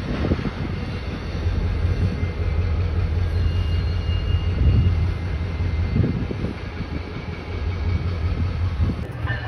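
Diesel locomotive engines running: a steady low rumble.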